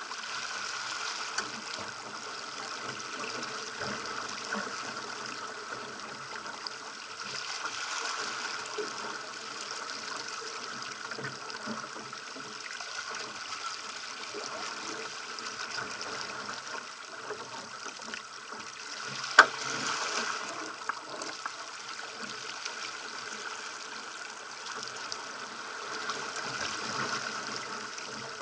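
Water rushing and splashing along the hull of a Pacer sailing dinghy under way, a steady noise with no rhythm. A single sharp knock stands out about two-thirds of the way through.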